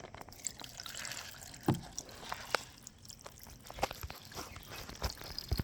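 Water pouring and trickling into an instant ramen container, filling it to the fill line, with scattered small clicks and knocks.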